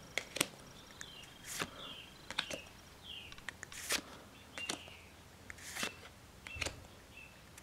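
Pokémon trading cards being shuffled by hand one at a time, each card slid from the back of the stack to the front: soft brief swishes and light clicks of card stock, about one a second.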